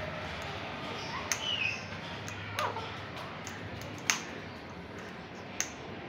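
Alexandrine parakeet eating fruit in its cage: four sharp clicks, spaced about a second and a half apart, over a low steady hum, with a brief high squeak about a second and a half in.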